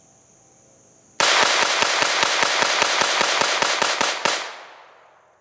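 Kel-Tec P17 .22 LR pistol fired in a rapid mag dump of 40-grain standard-velocity rounds: a fast string of sharp shots, about five a second for some three seconds, starting about a second in. The echo dies away over the following second.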